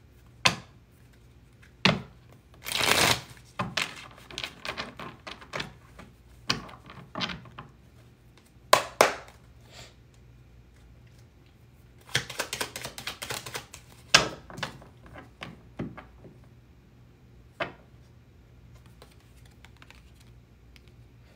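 A tarot deck being shuffled by hand: irregular bursts of cards flicking and snapping against each other, with sharp taps in between. It quietens over the last few seconds.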